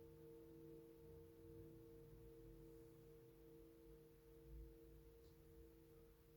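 Himalayan singing bowls ringing on after a soft strike: two steady low tones with fainter higher overtones, held quietly.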